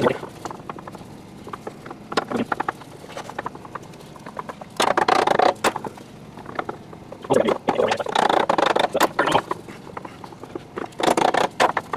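Trigger bar clamps being ratcheted tight in several bursts of rapid clicks, pressing a new ball bearing onto an electric motor's rotor shaft.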